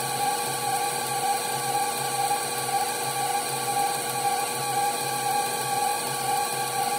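Electric stand mixer running steadily, its wire whisk beating egg whites to stiff peaks while sugar is poured in. The motor gives a steady whine with a regular low pulse.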